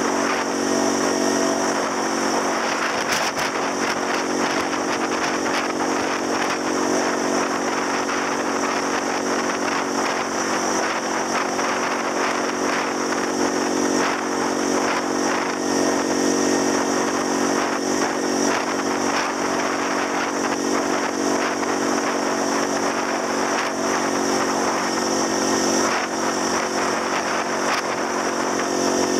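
Motor scooter engine running steadily at cruising speed, heard from the rider's seat, under a constant rush of wind and road noise.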